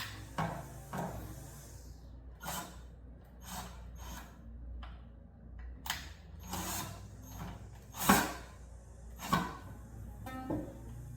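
A series of irregular knocks and rubs on wood, about ten over the stretch, some ringing briefly; the loudest comes about eight seconds in.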